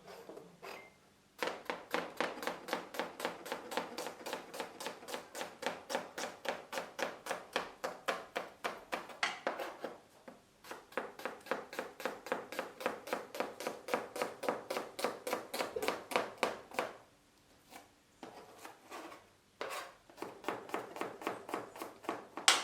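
Kitchen knife chopping onions on a cutting board: quick, even strokes about four a second, in two long runs with short pauses about ten and seventeen seconds in, then looser chopping and one louder knock at the very end.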